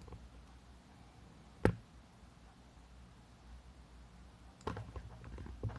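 Plastic joints of a large transforming-robot action figure clicking as its arms are moved into a pose: one sharp click under two seconds in, then a run of small clicks and knocks near the end, over faint room tone.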